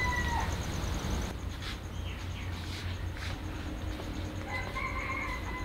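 Two drawn-out, wavering animal calls, one at the start and one of about a second and a half near the end, with a few light clinks of a metal spoon against ceramic bowls between them.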